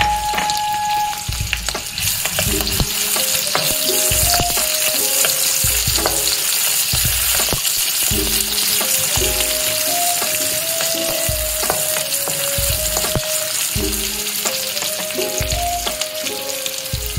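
Sliced onions and green chillies sizzling in hot oil in a kadai, stirred now and then with a spatula; the sizzle grows stronger about two seconds in.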